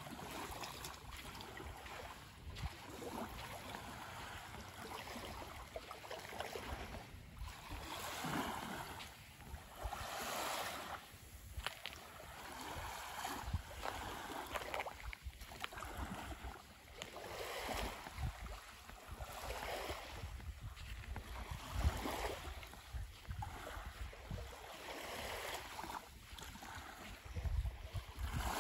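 Small waves lapping on a sandy shore in soft, irregular washes, with a low wind rumble on the microphone underneath.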